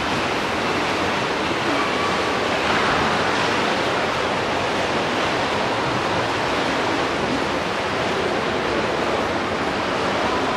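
Steady rushing water noise of an indoor swimming pool in use, with no distinct splashes or knocks.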